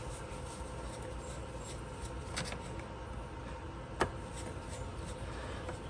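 Quiet room tone with a faint steady hum, and the light clicks of a screwdriver working a small Phillips-head screw out of a plastic motorcycle chain guard: a faint one about two and a half seconds in and a sharper one about four seconds in, as the screw comes free.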